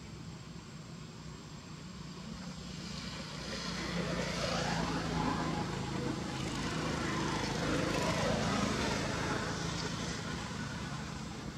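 A motor engine passing by: a steady low hum that grows louder from about a quarter of the way in, holds, then eases off near the end.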